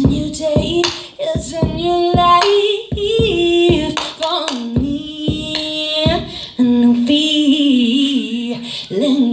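A woman singing wordless, held and sliding notes live into a microphone, crossed by a run of short, sharp low thumps that keep an uneven beat.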